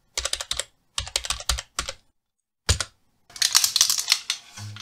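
Keyboard typing sound effect: several quick bursts of key clicks with short gaps, and one last click after a pause. About three seconds in it gives way to denser metallic clatter as a stainless-steel hand-crank pasta machine is picked up and handled.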